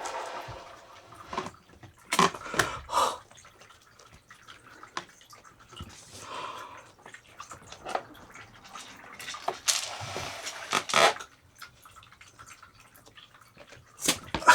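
Scattered light clicks, taps and rustles of decorations and balloons being handled, with a few louder taps about two seconds in, around ten seconds and near the end.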